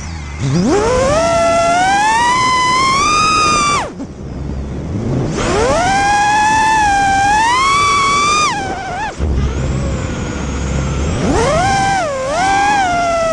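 Emax RS2206 1600 KV brushless motors of a 6S FPV racing quadcopter whining, the pitch rising and falling with the throttle: three steep climbs to a high whine, with drops back to a low idle about four seconds in and again about nine seconds in.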